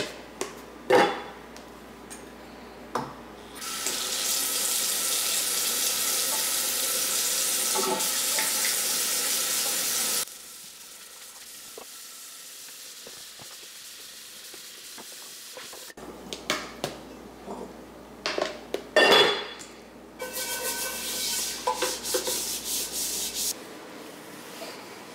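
Dishes being hand-washed at a kitchen sink. A few clinks and knocks of a glass pot lid and dish come first, then the faucet runs into the sink for several seconds. More clatter follows, and the water runs again briefly near the end.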